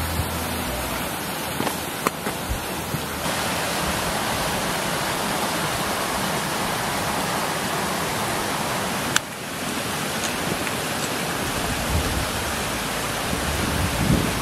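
Steady rushing of a small mountain stream, its character shifting abruptly about three seconds and nine seconds in.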